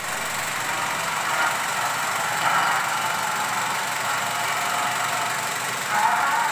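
35mm film projector running, a steady mechanical clatter and whir from its film transport and motor.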